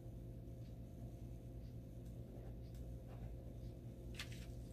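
Ballpoint pen writing on a paper label, faint scratching strokes, over a steady low electrical hum, with a sharper paper rustle about four seconds in.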